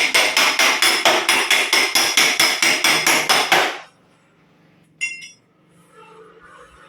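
Rapid, even metal-on-metal strikes on a dented steel car body panel, about five a second, as the panel is beaten out with a body hammer or bumping file; they stop suddenly near the middle. About a second later comes a single ringing metal clink.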